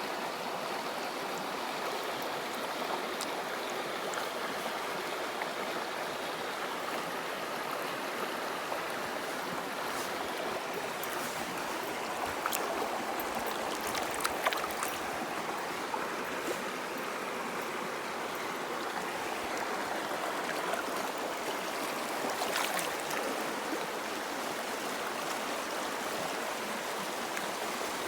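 Stream water flowing with a steady rush, with a few short sharp clicks or taps about halfway through and again later.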